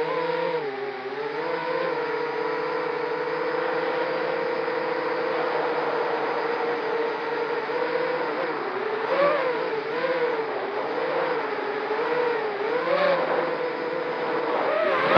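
ZMR250 racing quadcopter's brushless motors and propellers whining, heard from the on-board camera. The pitch holds steady for a few seconds, then rises and dips as the throttle changes, with short swells about two-thirds in and again near the end.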